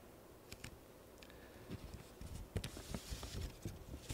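Quiet room tone with scattered faint clicks and a soft rustle about three seconds in, small handling noises picked up by the lectern microphones.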